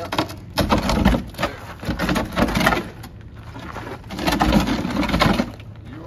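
A Wanderlodge coach entry door and the wooden stand it sits in knocking, creaking and scraping as the heavy door is lifted out and handled. The noise comes in two long, clattering stretches.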